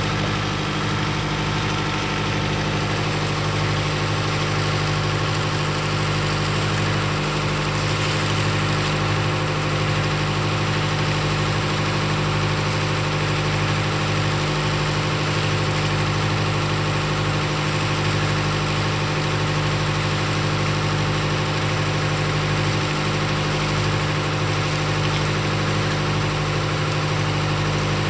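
Engine on board a fishing boat running steadily, an even low hum with no change in speed.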